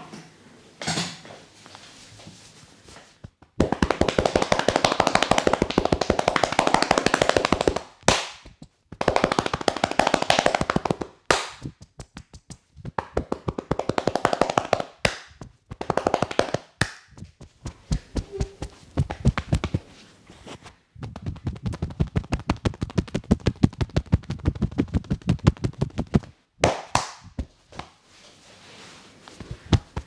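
Rapid percussive massage strokes: a masseur's hands tapping and slapping quickly on a person's head and shoulders, in runs of a few seconds with short breaks between.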